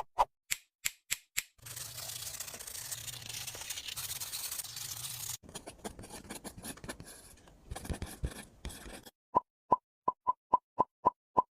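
Short, evenly spaced pops at the start and again near the end, with a stretch of scraping and rubbing in between.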